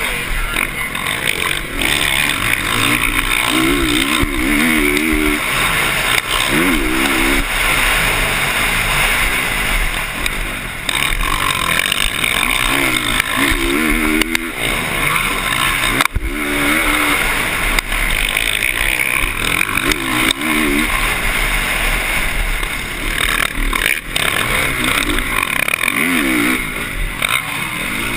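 Dirt bike engine heard from on board while racing, its pitch rising and falling over and over as the throttle is worked through the jumps and turns, under a steady rush of wind on the microphone.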